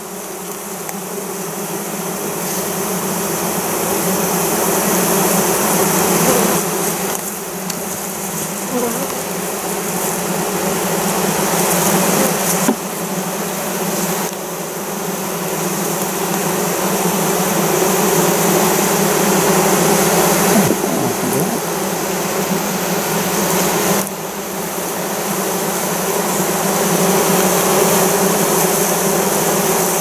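Loud, steady buzzing of a mass of honey bees shut in a screened bee box, swelling gradually in waves over several seconds at a time. The bees are stirred up by their queen, caged and set on the screen above them.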